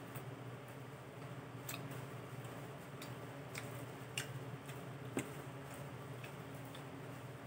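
Eating by hand: quiet chewing with scattered, irregular wet mouth clicks and lip smacks, and a couple of sharper knocks about halfway through, over a steady low hum.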